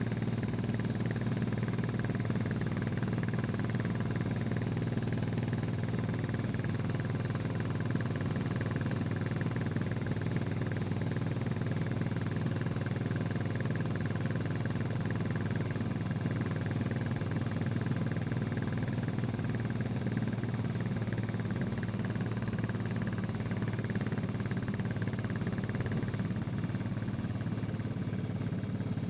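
Royal Enfield Classic 500 EFI's single-cylinder engine running at a steady cruise, its exhaust thump picked up from just above the exhaust pipe. The engine note and level hold even throughout, with no revving or gear change.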